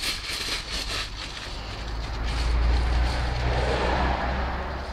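A passing motor vehicle's engine rumble, swelling to its loudest about halfway through and easing off again. Aluminium foil rustles briefly at the start.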